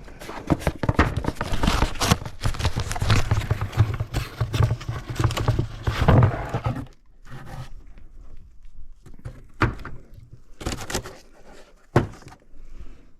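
A busy run of knocks and rattles for about seven seconds, then three separate knocks a second or so apart.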